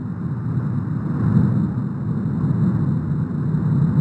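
Continuous deep roar of the erupting La Palma volcano's vent as it jets lava and ash, a rumbling noise that swells and eases without a break.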